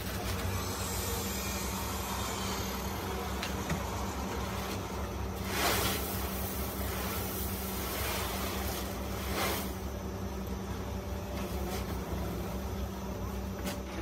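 Factory machinery running with a steady low electric hum, with two short whooshing noises about six seconds in and again near nine and a half seconds.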